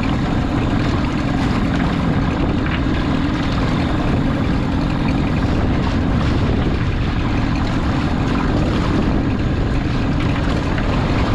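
Outboard motor of a small aluminium boat running steadily at low speed, a continuous low drone with no change in pitch.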